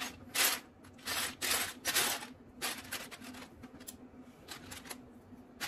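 Small plastic Lego pieces being handled and pressed together by fingers: about ten short, irregular rustling clicks.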